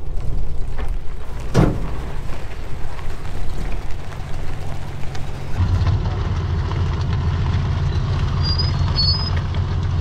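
1950s VW Bus's air-cooled flat-four engine running as it drives a rough dirt trail. A brief sharp noise comes about one and a half seconds in, and the engine grows louder from about five and a half seconds in, as under more load.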